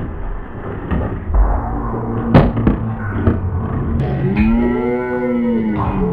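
Skateboard grinding across a wooden box and coming down with a sharp clack about two and a half seconds in, then rolling on asphalt. Near the end a long, drawn-out call rises and falls in pitch, like a person's held 'whoa'.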